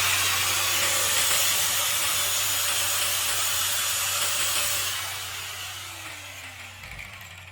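Homemade hand-drill-driven circular saw cutting through wood: a loud, steady cutting noise that eases off after about five seconds, then a falling tone as the blade slows, with a knock near the end.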